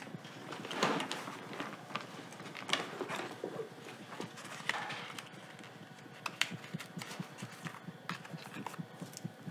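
Hands handling small objects: scattered light clicks and soft knocks with rustling, the louder ones about a second in, near three and five seconds and near six and a half.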